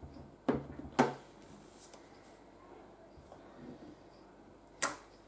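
Clear acrylic stamp block tapped twice onto an ink pad, two sharp knocks half a second apart, then quiet handling and one sharp click near the end as the block is pressed onto card stock.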